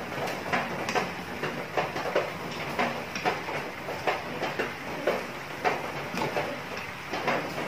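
Thick soy and oyster sauce glaze boiling hard around chicken in a frying pan, bubbling with irregular pops, while a wooden spatula scrapes and taps the pan: the sauce is being reduced until it thickens.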